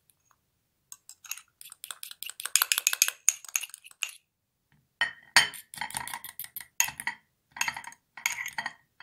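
Metal fork whisking a runny egg-white mixture in a small glass jar, clinking rapidly against the glass, starting about a second in. After a short pause near the middle the clinks come louder, with the glass ringing.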